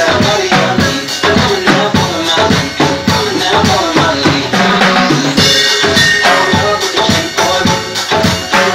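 Timbales and cymbals played with sticks in a fast percussion solo, dense rapid strokes, with a cymbal crash about five and a half seconds in.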